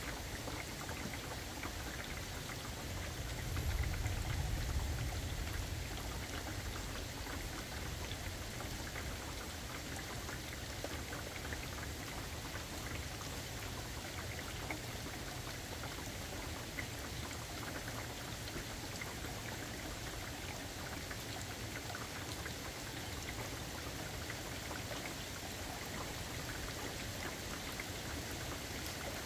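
Steady summer rain, an even hiss with fine drop patter throughout. A low rumble swells and fades about four seconds in.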